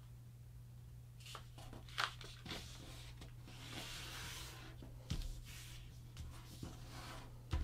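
A sheet of printer paper being folded by hand: soft rustling and sliding as the palms smooth the fold flat, with a few short, crisp crinkles. A faint steady low hum runs underneath.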